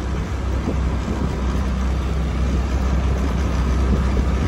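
Motor scooter running steadily on the move over a rough lane, with wind rumbling on the microphone.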